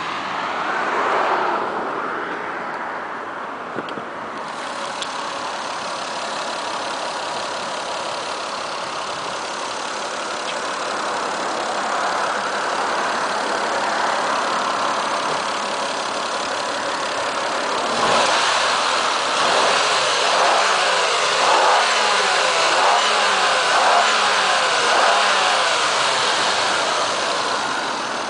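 Toyota Supra MK4's twin-turbo 2JZ-GTE straight-six running at idle, revved briefly about a second in. From a little past halfway it is blipped repeatedly in a quick series of short revs.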